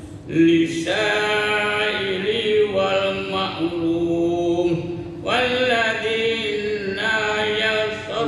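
Melodic Qur'an recitation in Arabic by a single voice, in long drawn-out, ornamented phrases with short breathing pauses.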